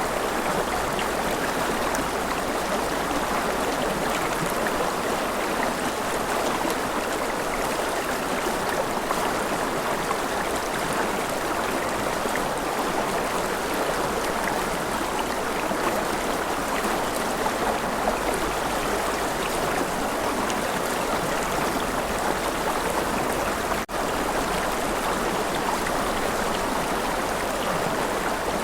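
River water flowing steadily, an even rushing sound. There is a momentary dropout about four-fifths of the way through.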